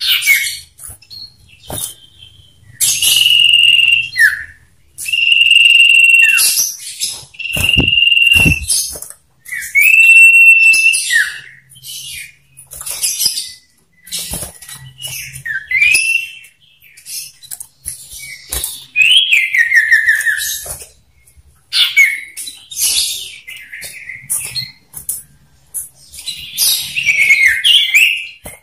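Male common ioras calling back and forth: long level whistles held about a second each, several in a row in the first half, then shorter chirps, a falling trilled call and rapid chattering notes, with wing flutters among them.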